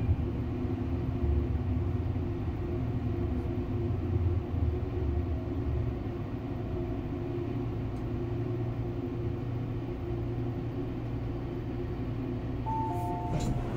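Steady low rumble and hum of an MTR Airport Express train running, heard inside the passenger cabin. Near the end a two-note falling chime sounds, starting to repeat.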